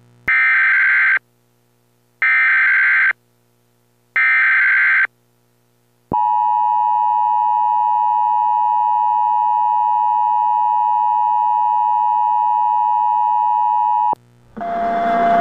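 Emergency Alert System alert opening: three evenly spaced bursts of SAME header data, each about a second long, then the steady two-tone EAS attention signal held for about eight seconds and cut off abruptly. A noisy hiss rises in the last second.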